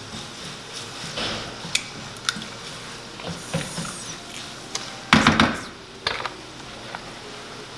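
Sausage sizzling in a frying pan as it is stirred with a wooden spoon, with scattered sharp clicks and taps of eggs being cracked into a bowl and a louder clatter about five seconds in.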